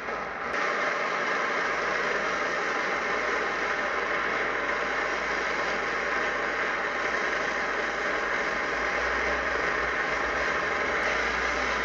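Optimus Svea 123 white gas stove burning at full flame: a steady rushing noise from the burner, which steps up in loudness about half a second in and then holds even.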